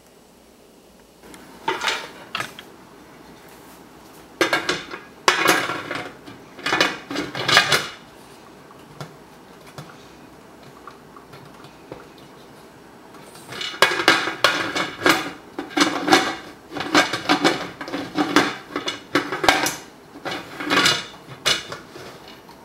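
Metal pressure canner clanking and scraping in bursts: glass canning jars knocking as they go in, then the lid grinding and clanking as it is twisted back and forth on the pot to lock it. The lid is hard to lock.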